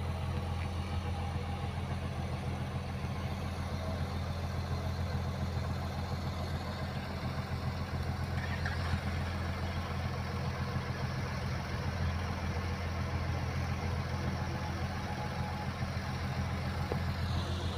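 Kobelco crawler excavator's diesel engine running steadily, a low even drone that holds the same pitch without revving.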